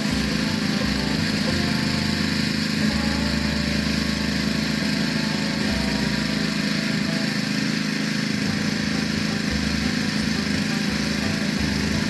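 Power sprayer's small engine-driven pump running steadily, feeding pesticide through a hose to a spray lance, with an even hiss of spray from the nozzle.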